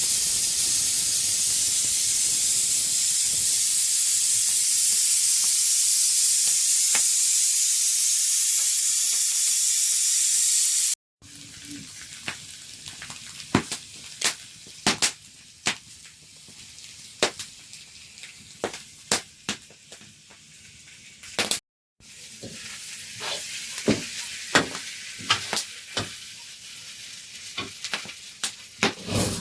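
Food frying in hot oil with a loud, steady sizzle. After a sudden cut about eleven seconds in, a quieter sizzle continues with many sharp clicks and taps, typical of a utensil stirring in the pan.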